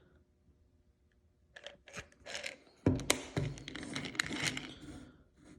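Plastic bottle of pressed garlic tablets being handled: a few clicks, a sharp knock about three seconds in, then the hard tablets rattling and clicking inside for about two seconds.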